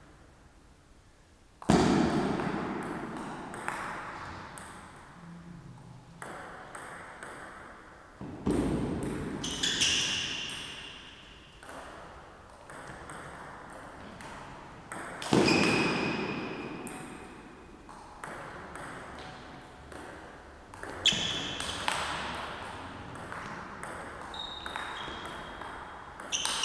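Table tennis rallies: the celluloid-type ball clicking on bats and table in quick exchanges, with loud hits that ring out in the hall every several seconds and short shoe squeaks on the floor.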